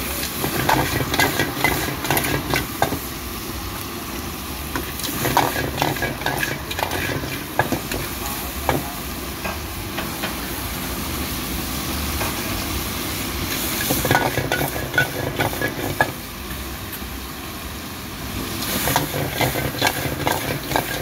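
A metal ladle scrapes and knocks against a steel wok as snails and greens are stir-fried, with steady sizzling underneath.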